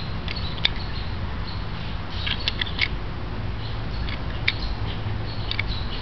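Small plastic clicks and light scrapes of airsoft revolver shells being pushed into the open cylinder of a UHC spring revolver, a few at a time and unevenly spaced, over a low steady rumble.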